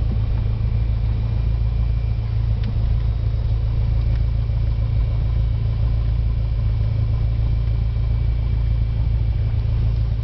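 Cessna 172's piston engine and propeller running steadily, a deep, even drone heard from inside the cabin as the plane rolls along the ground.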